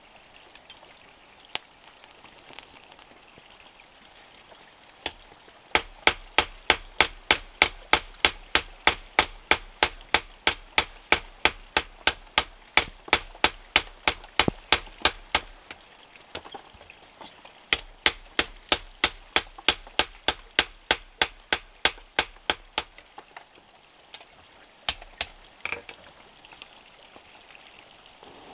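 Hammer striking metal in a steady rhythm of about three blows a second, each blow with a short bright ring, in two runs, the first about ten seconds long and the second about five, separated by a short pause. A few single knocks come before and after.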